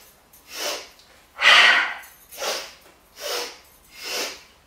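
A woman breathing forcefully in the Breath of Joy pattern, three sharp audible inhales then one vigorous exhale. A quick inhale comes first, then a loud exhale about a second and a half in, followed by three more short inhales at an even pace.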